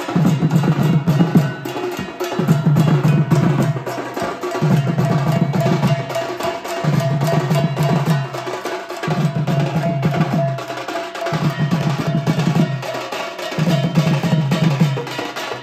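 Live Sambalpuri folk drum ensemble, including a barrel-shaped dhol and stick-struck drums, playing a fast, driving rhythm of dense strikes. A deep drum pattern swells in and drops out about every two seconds.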